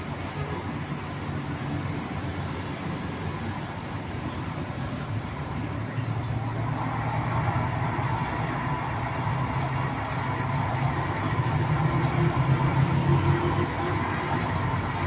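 Label rewinder's electric motor running steadily as it winds labels from one roll onto another core; the hum grows louder about six seconds in.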